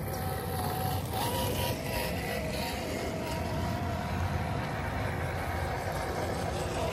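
Electric motors and gearboxes of 1/10-scale RC rock crawlers whining as they drive over rocks, steady, with a faint wavering pitch.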